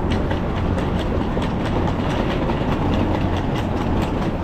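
Steady street noise with a low rumble, and light regular ticks from footsteps on the pavement.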